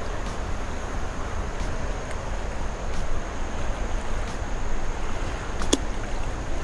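Steady rushing of wind on the microphone over flowing river water, with one sharp click near the end.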